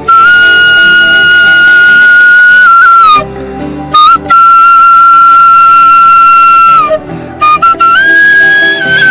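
High, flute-like held notes: one long note of about three seconds, a brief break, then a second long note, and toward the end shorter notes stepping slightly in pitch.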